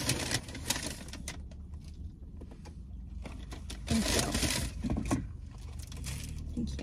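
Paper fast-food wrappers and a cardboard food box crinkling and rustling as they are handled and unwrapped, with small clicks and taps that are busiest about four seconds in.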